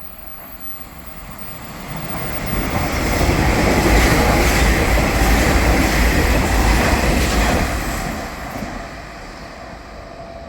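Nishitetsu Tenjin-Ōmuta Line electric train passing: the rumble of wheels on rails rises from about two seconds in, stays loud for several seconds, then fades away.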